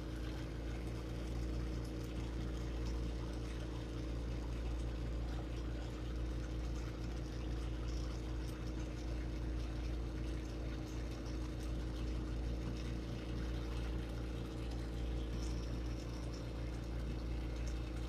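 Glassblowing bench torch burning steadily with a continuous hiss, over a steady low hum.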